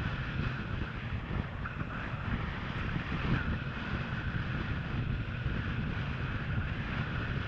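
Steady wind buffeting on an action camera's microphone while wingfoiling, a low rumble under a hiss of rushing air and water.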